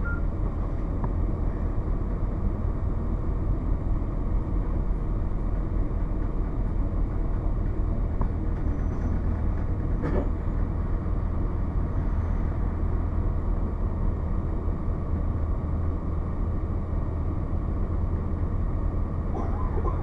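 Cummins ISC diesel engine of a 2002 Blue Bird CS transit bus running steadily, a low rumble heard from inside the passenger cabin, with one faint click about halfway through.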